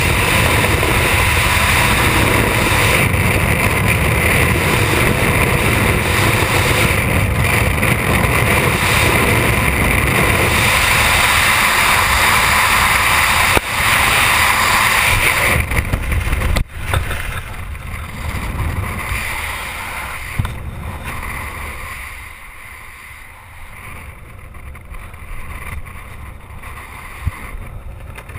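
Loud, steady wind rush on the microphone during skydiving freefall. About sixteen seconds in, the parachute opens with a short snap and the wind noise drops sharply to a much softer, uneven rush under the open canopy.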